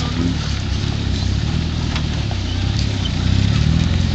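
Small 4x4's engine running at low revs under load as it crawls up a steep dirt slope, getting a little louder near the end.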